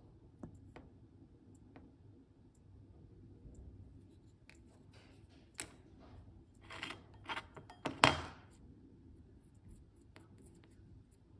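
A few faint ticks of a thin metal tool against a small ceramic dish as gold powder and lacquer are mixed, then a quick cluster of short, sharp handling noises about halfway through, the loudest near the end.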